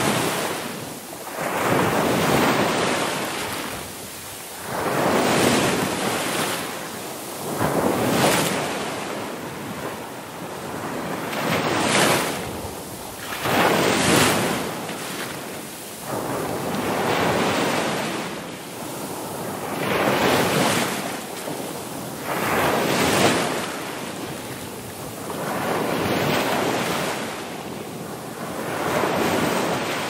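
Ocean waves breaking and washing in, a surge of rushing water swelling and ebbing about every three seconds.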